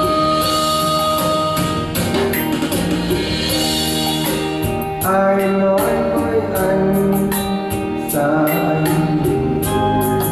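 Recorded song with instrumental accompaniment and singing, played from a phone through the amplifier and its loudspeakers.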